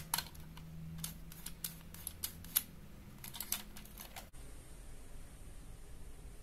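Hard plastic toy belt buckle, the DX Desire Driver, handled and turned in the hands: a quick irregular run of light plastic clicks and taps that stops a little past halfway.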